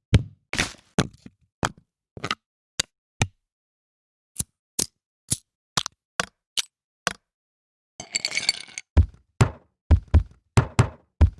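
Single drum and percussion samples from FL Studio's stock sounds, played one at a time with dead silence between them: short clicky and snappy hits, a brief noisy cymbal-like hit about eight seconds in, then deeper, bass-heavy hits near the end.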